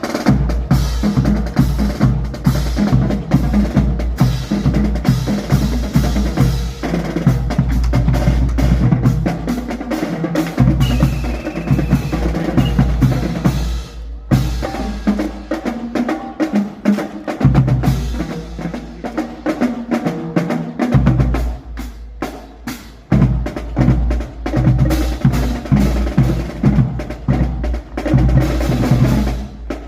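Drum-heavy music: rapid snare and bass drum hits over a deep bass line, which drops out briefly twice midway.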